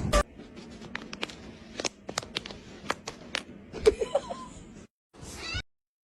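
A series of about a dozen short, sharp clicks and knocks at an irregular pace, with a brief faint pitched squeak about four seconds in. The sound cuts out abruptly twice near the end.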